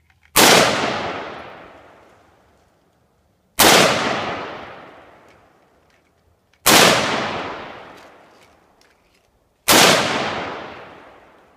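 Four single shots from a Diamondback AR-15 rifle firing .223, about three seconds apart, each sharp crack trailing off over about two seconds.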